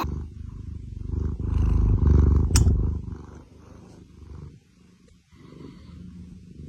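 An animal's low rumbling, loudest over the first three seconds and then fading, with one sharp click about two and a half seconds in.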